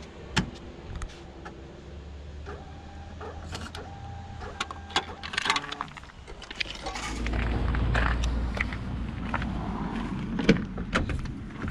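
Pay-and-display parking ticket machine whirring and clicking as it prints and issues a ticket. About seven seconds in, a louder low rumble takes over, with a few sharp clicks near the end.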